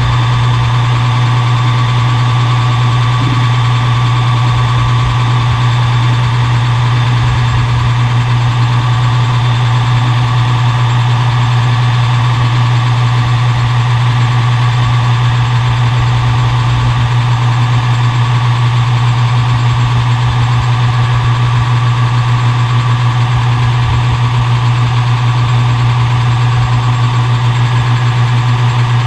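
Metal lathe running steadily while facing off round stock, with a strong, even low hum and a fainter steady whine above it.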